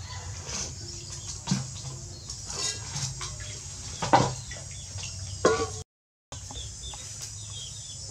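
Metal cooking pots and utensils knocking as they are handled: a few sharp clanks, the loudest about four seconds in, over a low steady hum.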